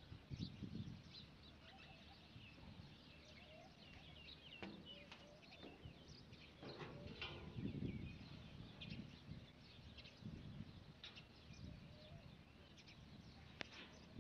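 Near silence with small birds chirping faintly on and off throughout, and a few short low rumbles, the strongest about halfway through.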